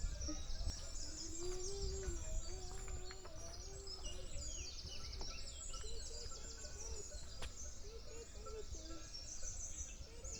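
Small birds chirping repeatedly in quick short calls, over a low outdoor rumble, with a faint wavering tone underneath.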